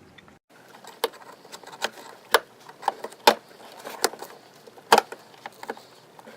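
Irregular clicks and taps of a metal pick working a rubber grommet off a plastic windshield washer pump, with a few sharper clicks scattered through.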